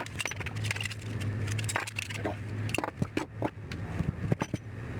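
Hand-dismantling of electronics scrap: a run of irregular clicks, knocks and scrapes as plastic and metal parts and a circuit board are handled, over a low steady hum that fades about three seconds in.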